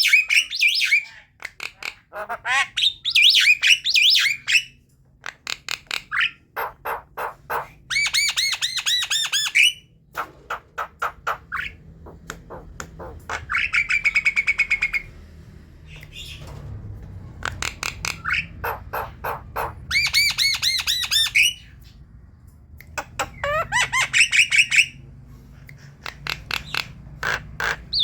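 Javan myna chattering song: runs of rapid clicking notes alternating with harsh, buzzy whistled phrases, some phrases recurring.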